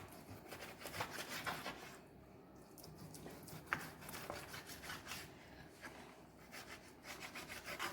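Kitchen knife cutting raw chicken breast into small cubes on a cutting board: faint, irregular taps of the blade on the board with soft scraping between them.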